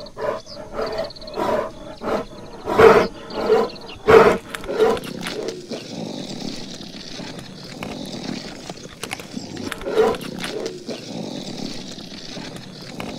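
Bear growling and grunting in a run of short calls over the first few seconds. Then comes a lower, steadier sound, with one more growl about ten seconds in.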